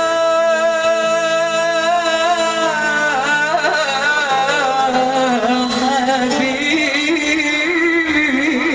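Woman singing into a microphone in an Arabic style: a long held note, then a wavering, ornamented melodic line, with instrumental backing.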